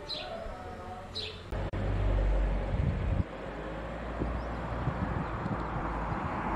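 Outdoor ambience: a small bird chirps twice in the first second or so. Then the sound changes abruptly to a louder, uneven low rumbling noise with hiss over it.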